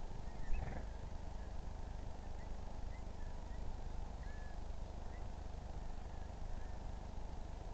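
Small birds chirping faintly and sparsely, short separate chirps every second or so, over a steady low rumble. A single knock about half a second in.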